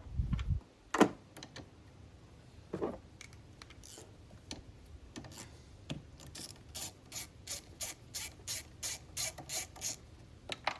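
Ratchet wrench clicking in a steady run of short strokes, about three clicks a second, through the second half. A sharp knock comes about a second in.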